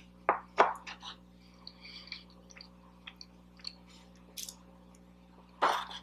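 Close-miked eating sounds: chewing and wet mouth noises on soft food like meatloaf and mashed potatoes. There are a few sharp smacks in the first second and another loud one near the end, with faint clicks between.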